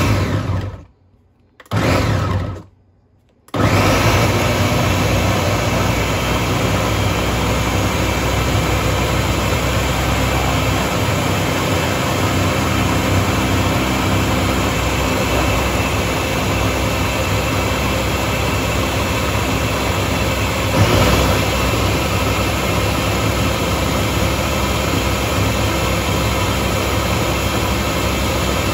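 Ninja countertop blender chopping and blending chunks of fruit. It runs briefly, stops about a second in, gives one short pulse, then runs steadily from about three and a half seconds in, with one brief surge about twenty-one seconds in.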